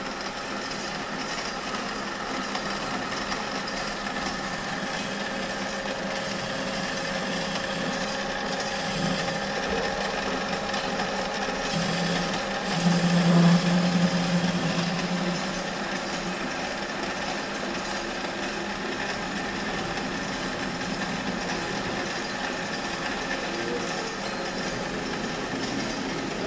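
Lathe running with a steady hum while its cutting tool scrapes against a spinning metal workpiece. The cutting gets louder for a few seconds about halfway through, with a low drone under the scraping.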